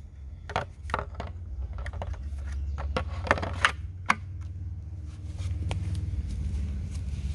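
Plastic scraping and clicking as a Hart 40 V lithium-ion battery pack is slid into a cordless blower and latched, ending in a few sharp snaps close together about three to four seconds in.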